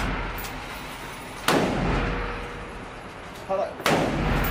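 Two gunshots at an indoor shooting range, about a second and a half in and again near the end, each a sharp crack followed by a long echo in the range's hall.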